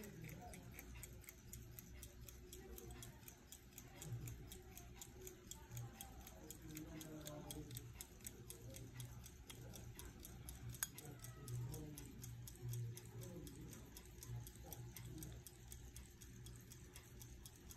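Ingersoll Radiolite pocket watch ticking faintly with its back open on the movement, the escapement beating in a rapid, even rhythm. One sharper click stands out partway through.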